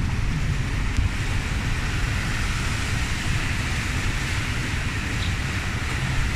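A car moving slowly through a flooded street: a steady low rumble of engine and road with a continuous hiss of water around the tyres.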